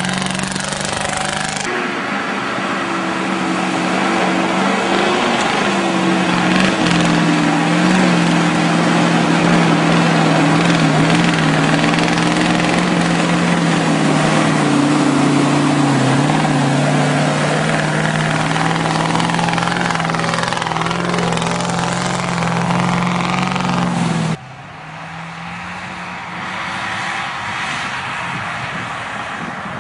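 GAZ-66 military truck's V8 petrol engine running under load as the truck pushes through mud and snow, a steady engine note whose pitch wavers slightly. About 24 seconds in it cuts suddenly to a quieter engine sound.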